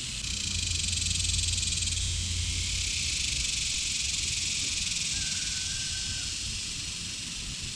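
Steady, high-pitched drone of an insect chorus, with a low rumble underneath that is strongest in the first two seconds. A brief thin tone sounds about five seconds in.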